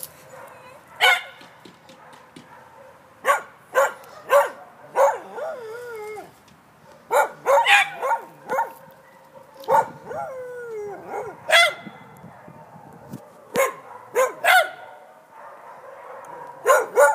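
Dogs barking in short, irregular barks, a few in quick runs, with two longer whining yelps that slide down in pitch.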